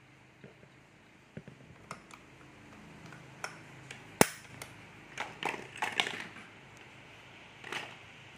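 Scattered plastic and metal clicks and knocks of a cordless Hilti 22V rotary hammer being handled while a masonry drill bit is fitted into its chuck. One sharp click stands out about four seconds in.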